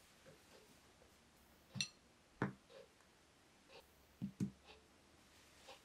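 A few faint, separate taps and clicks in a small room, two of them in quick succession past the middle.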